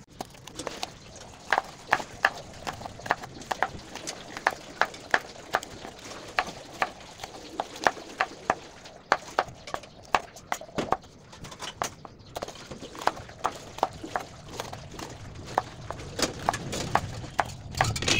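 Chef's knife slicing a green bell pepper into strips on a cutting board: sharp knocks of the blade hitting the board, about two a second, with a couple of brief pauses.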